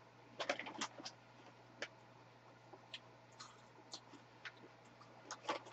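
Faint, scattered clicks and crinkles of snack eating: a hand working in a plastic bag of puffed corn snacks, and chewing, with a small cluster near the start and another near the end.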